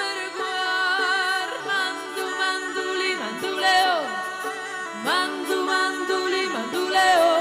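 Music: a melody of long held notes with vibrato, sliding down in pitch between phrases, over a steady accompaniment.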